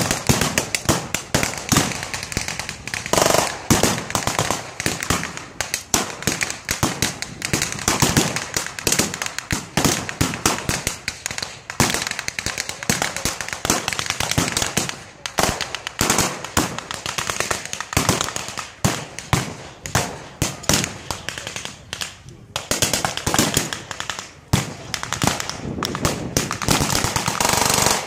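Sustained blank small-arms fire in a mock battle: sharp shots cracking several times a second, in runs with a few short lulls.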